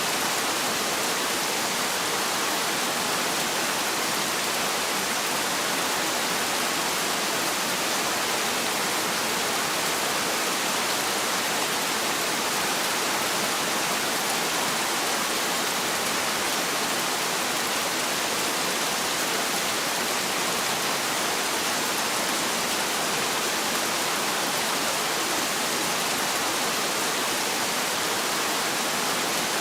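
Heavy rain falling steadily: an even, unbroken hiss with no thunder.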